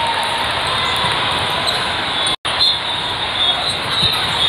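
Echoing din of a large multi-court volleyball hall: many overlapping voices and court noise, with a low thud of a ball near the end. The sound cuts out completely for a split second about halfway.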